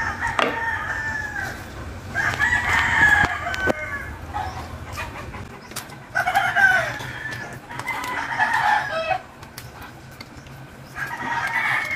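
Roosters crowing, about five drawn-out crows one after another.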